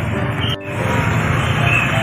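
Music over busy street noise, with a brief drop-out in the sound about half a second in.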